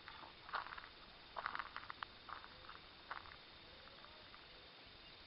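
Faint scattered rustles and clicks for about the first three seconds, then only a low steady outdoor hiss.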